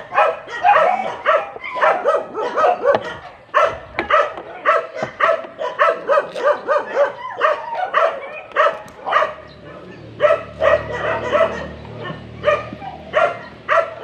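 A dog barking over and over in short, high barks, about three a second, without letting up.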